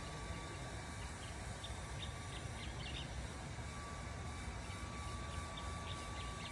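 Outdoor night ambience: a steady low rumble with a thin steady hum, and brief high chirps in two clusters, about two seconds in and again near the end.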